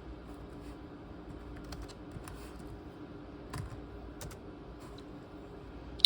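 Keys on a ThinkPad T23 laptop's keyboard clicking in sparse, irregular keystrokes, over a steady low hum.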